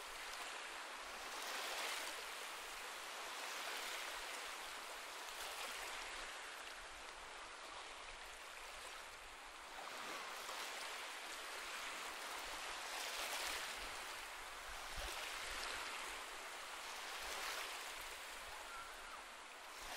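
Gentle sea waves washing on a beach: a soft hiss that swells and fades every few seconds.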